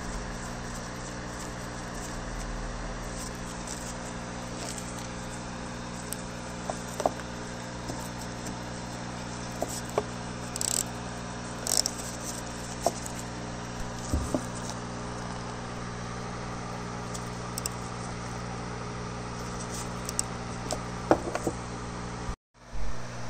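Scattered light clicks and scrapes of a hand tool and gloved fingers on a fitting in a Suzuki Ignis transmission case, over a steady low hum. The sound cuts out briefly near the end.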